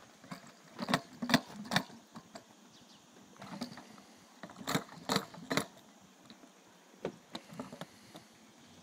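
A small child's sandalled feet landing on and scuffing hollow plastic playground stepping stumps: short sharp knocks in clusters, three loud ones about a second in, three more around five seconds in, and lighter ones near the end.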